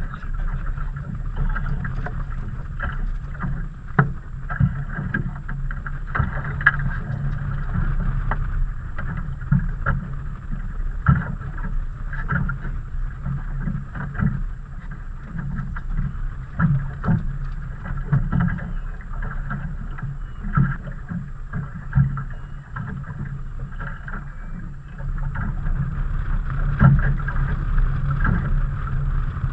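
Small fishing boat rocking on choppy water: a steady low rumble with frequent irregular knocks and slaps of water against the hull.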